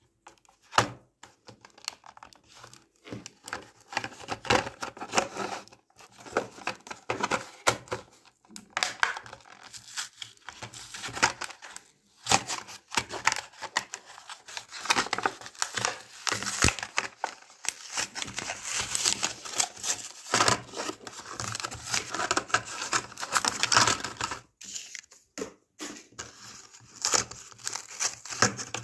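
A Hot Wheels blister pack being torn open by hand: the plastic blister crinkles and crackles and the cardboard card tears and peels, in an irregular run of crackles and clicks with a few short pauses.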